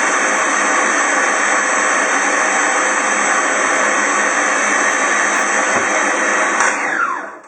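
Electric blender running loud and steady, blending boiled desiccated coconut into liquid. It is switched off near the end and the motor winds down with a falling whine.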